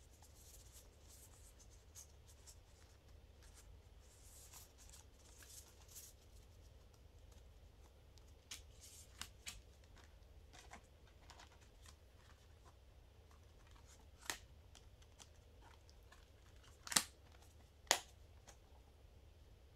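Stiff printed art cards shuffled and slid against each other in the hands, a soft papery rustle, followed by scattered light clicks and taps from handling a metal SteelBook disc case, with two sharper clicks near the end.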